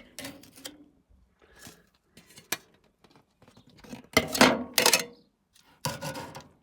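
Clatter of metal utensils and dishes as cooked chicken wings are taken off the grill: a string of short clanks and scrapes, the loudest about four to five seconds in.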